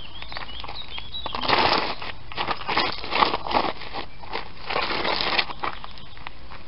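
Ballet flats scuffing and dragging across loose gravel and dirt: gritty crunching and scraping in three bouts, with small stones clicking.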